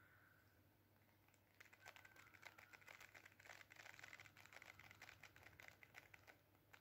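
Near silence: quiet room tone, with faint, rapid clicking and rustling for several seconds in the middle.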